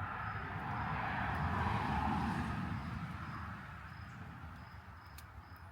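Crickets chirping steadily, short high chirps about twice a second. A broad rushing sound swells and fades away over the first few seconds.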